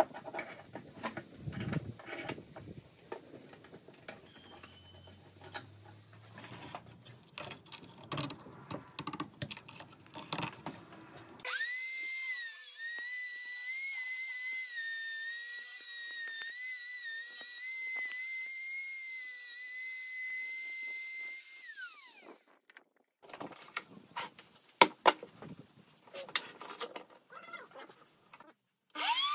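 Electric handheld router mounted in a wooden jig: about 11 seconds in it starts with a high steady whine that wavers slightly as it cuts into the oak, runs for about ten seconds, then is switched off and winds down. Before and after the cut there are knocks and clicks from the board being positioned and clamped, with two sharp, loud clacks from the clamps.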